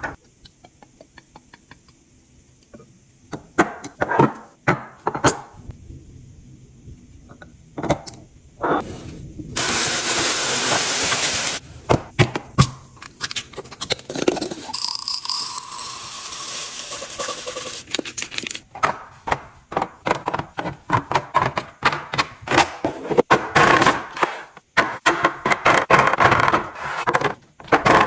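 Handling noises of restocking a kitchen: clicks, knocks and scrapes from containers and packaging, with two longer rushing stretches near the middle, the first about two seconds long, and a dense clatter in the second half.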